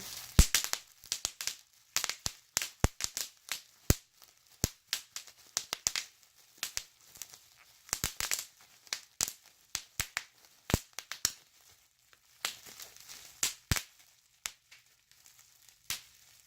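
Plastic bubble wrap being unwrapped from a package, crinkling with many irregular sharp crackles and snaps.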